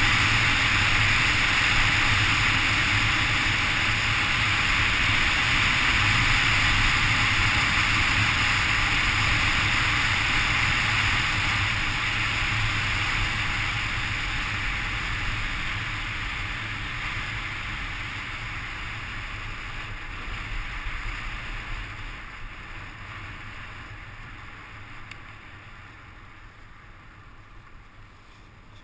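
Wind rushing over a body-mounted camera's microphone, with skis running over snow, during a downhill ski run. It is loud and steady at first, then fades steadily over the second half as the skier slows.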